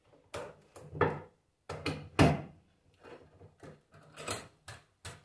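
Metal knocks and clatters as a car starter motor is handled in a bench vise at the start of its disassembly: about a dozen short, irregular strikes, the loudest a little past two seconds in.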